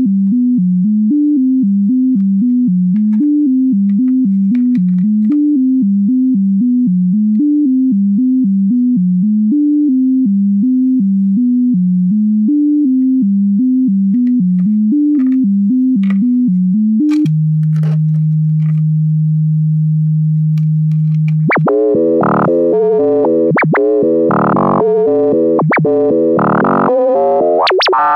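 Hikari Instruments SINE Eurorack oscillator putting out a pure sine tone that steps quickly up and down through a sequence of low notes. About seventeen seconds in it holds one steady low note for about four seconds, then the sound turns dense and buzzy, with several sharp clicks.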